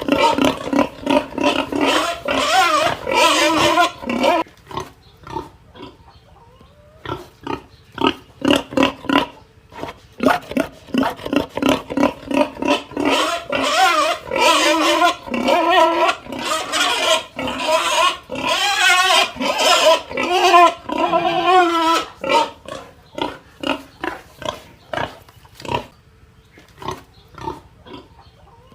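Pig squealing and grunting: long, wavering squeals in the first few seconds and again through the middle, with quick runs of short grunts between them and near the end.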